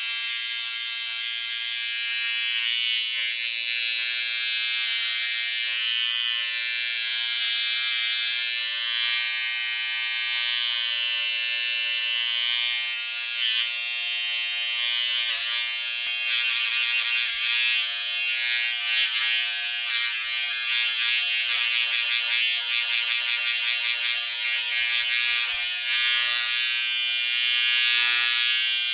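Portable electric shaver running continuously: a steady, high-pitched buzz that swells and dips slightly in loudness.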